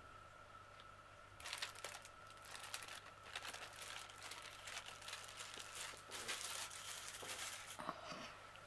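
Plastic mailing bag rustling and crinkling as it is handled, starting about a second and a half in, in irregular faint crackles.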